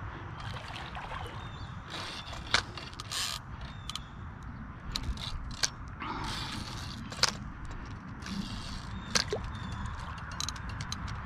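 Spinning reel being worked against a hooked channel catfish: the drag and reel mechanism clicking and ratcheting in irregular sharp ticks as the fish pulls line, over a low steady rumble.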